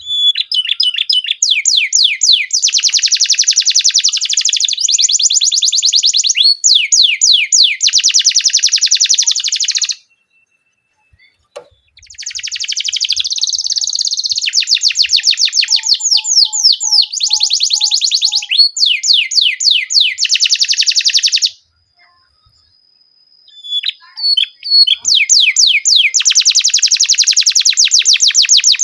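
Canary singing long phrases of fast, rapidly repeated trill notes in rolls. The song breaks off for about two seconds, twice: around ten seconds in and again around twenty-two seconds in.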